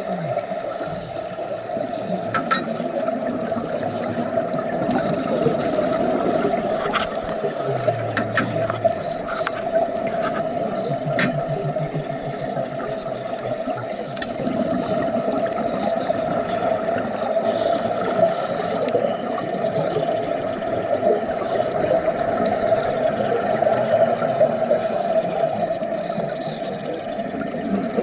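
Underwater sound through a camera housing: scuba divers' regulators and exhaled bubbles gurgling, with a few sharp clicks.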